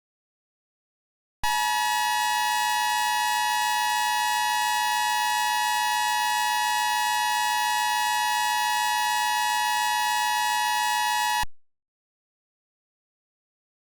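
Emergency Alert System attention signal: the steady two-tone alarm (853 and 960 Hz sounded together), starting about a second and a half in and cutting off about ten seconds later. It introduces the spoken alert that follows.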